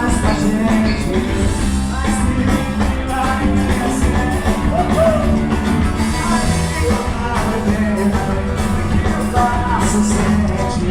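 Live band playing upbeat Brazilian party music, a singer's voice over a steady drumbeat and bass.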